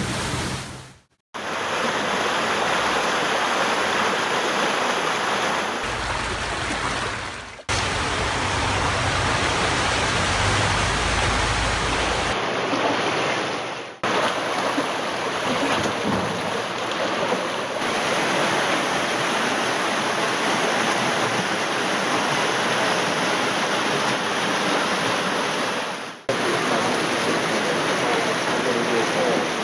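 Muddy floodwater rushing and churning in a steady, even rush, broken by brief gaps three or four times.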